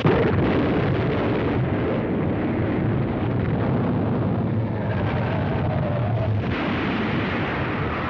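Cartoon sound effect of an electrically triggered earthquake: a sudden blast, then a continuous loud rumble.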